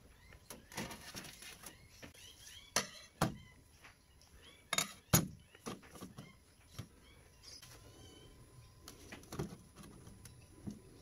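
Hard objects being handled: scattered light clicks and clinks, with a few louder knocks about three and five seconds in.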